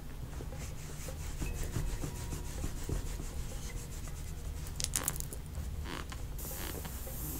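Hands rubbing and kneading over skin and cloth close to the microphone during a massage, with scattered soft clicks and a heavy low rumble of handling. Two louder rustles come about five and six seconds in, and a steady higher hiss starts near the end.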